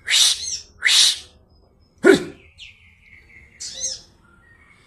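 Kapas tembak bulbul calling: three loud, rasping bursts in the first two seconds, then thin whistled notes and one shorter burst near the end.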